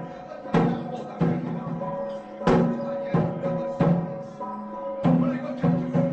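Traditional festival percussion music: drum strikes at an uneven beat, roughly once a second, over sustained ringing tones.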